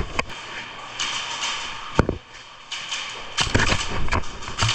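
Airsoft gun firing several sharp shots, the loudest about two seconds in and a quick cluster near the end, over rustling noise.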